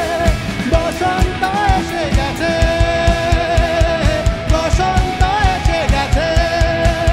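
Rock band music: a lead melody holding and bending long notes over a steady drum beat and bass.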